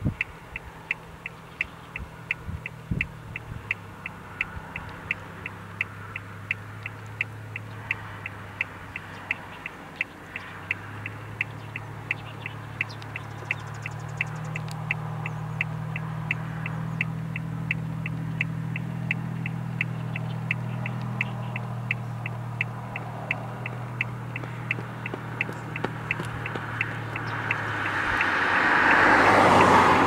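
Road traffic: an engine hum grows louder through the middle, then a vehicle passes close near the end. A steady high ticking, about two or three ticks a second, runs underneath.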